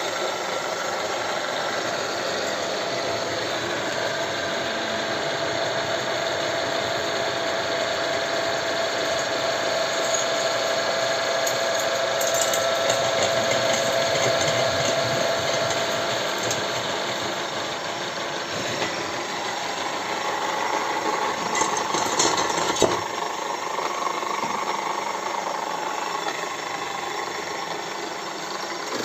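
Vertical drill press running steadily, its motor and spindle giving a continuous mechanical hum. Its tone shifts higher a little past halfway, and a few sharp clicks come shortly after.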